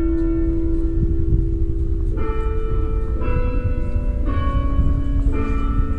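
Bells ringing. A tone from a stroke just before carries on, then four more strokes come about a second apart from about two seconds in, each at a different pitch and ringing on, over a steady low rumble.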